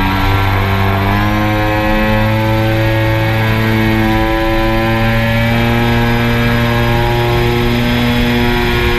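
Drone's electric motors and propellers running with a steady hum of several pitches, which rises sharply at the start and then shifts up and down as the throttle changes.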